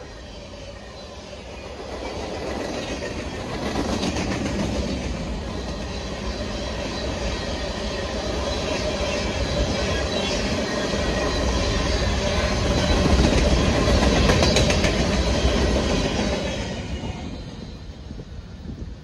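Freight train's covered hopper cars rolling past, wheels clacking over the rail joints. The noise swells and then dies away near the end as the last car goes by.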